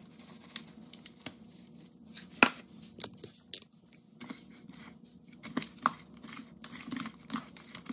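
Hands mixing mustard-coated fish chunks in a plastic tub, with a seasoning can shaken over them: scattered rustles and clicks, and one sharp knock about two and a half seconds in.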